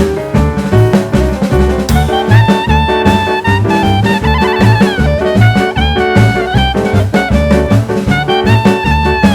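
Background jazz music: a steady drum beat under a brass melody, with the horn line coming in about two seconds in.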